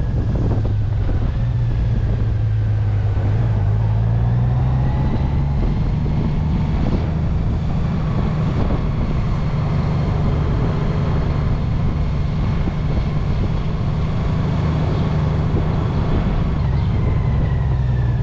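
Honda Gold Wing's flat-six engine running as the motorcycle rides at low speed, with wind noise on the microphone. The engine note rises about four seconds in and falls back near the end as the bike slows.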